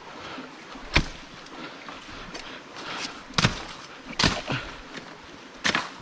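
Brush being cleared with a long-handled hand tool: four sharp chopping strikes at uneven intervals.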